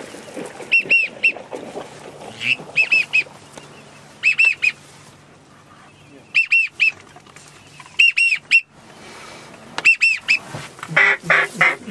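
Whistled duck calling: short, high, arched notes in quick groups of three or four, repeated every couple of seconds. A raspier, lower run of calls comes near the end.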